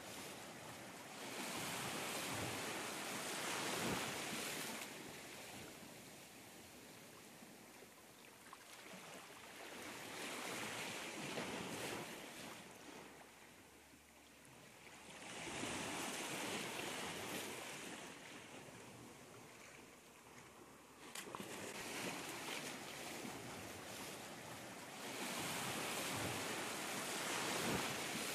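Small sea waves breaking and washing back, the surf swelling and fading about every five or six seconds.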